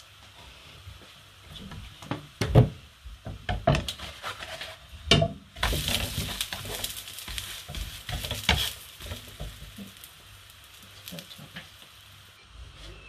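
A pancake frying in a pan, sizzling steadily, with sharp knocks and scrapes of a plastic spatula against the pan. About five and a half seconds in the pancake is turned and the sizzle gets louder for about three seconds.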